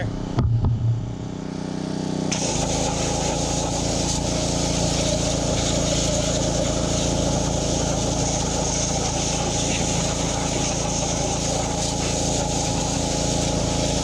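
Troy-Bilt pressure washer's Honda engine running steadily. About two seconds in, the hiss of the high-pressure water spray comes on and holds. Just before that there is a short low rumble.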